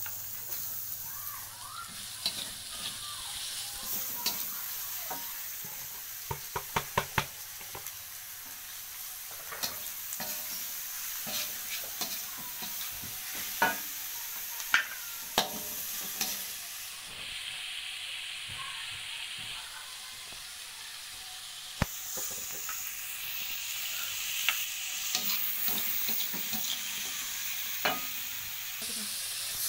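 Shredded carrot and cabbage sizzling in hot oil in a metal wok as a metal spatula stirs and scrapes them. Sharp clacks of the spatula against the pan come now and then, including a quick run of about five taps some seven seconds in.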